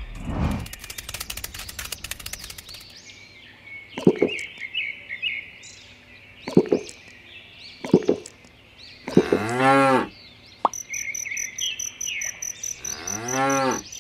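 Cow mooing: short moos about four, six and a half and eight seconds in, then two longer moos near the end, over faint chirping in the background.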